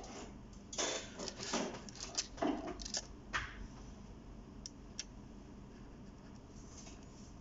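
Stainless steel link bracelet of a Seiko 5 wristwatch jingling and clicking as the watch is picked up and turned over by hand, for about three seconds, followed by two short clicks about five seconds in.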